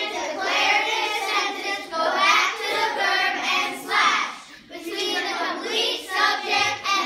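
Children singing, with a brief pause a little past halfway.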